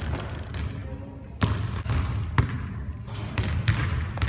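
A basketball bouncing on a hardwood gym floor: a few sharp bounces about a second apart.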